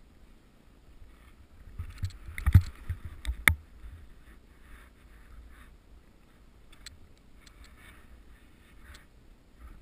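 Snow hissing and swishing under a rider carving through deep off-piste powder, heard from a camera on the rider. About two to three and a half seconds in comes a burst of heavy thumps from riding over bumps, ending in one sharp clack.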